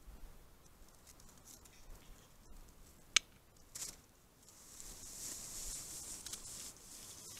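Male western capercaillie giving its lek display song: sharp clicks about three seconds in, then a scratchy, hissing whetting phrase lasting about three seconds.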